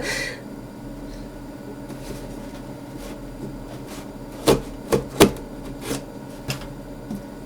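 Hands handling and opening a parcel's packaging: a handful of sharp clicks and knocks, most of them bunched from about four and a half seconds in, over a steady low electrical hum.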